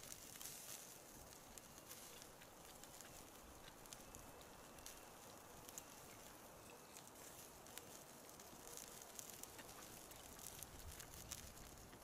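Near silence, with faint scattered clicks.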